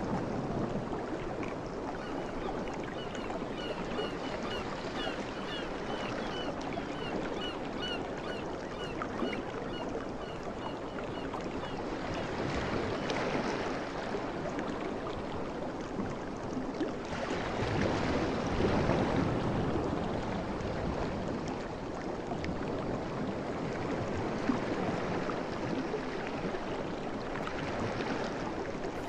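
Ocean waves washing in continuously, swelling louder a couple of times. Through the first ten seconds or so a bird repeats a short chirp about twice a second.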